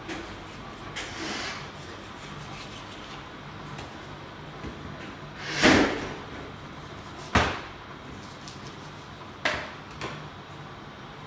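Knife and meat knocking on a plastic cutting board as meat is cut off the bone: three loud, sharp knocks about halfway through and after, the first the loudest, with a few fainter taps, over a low steady hum.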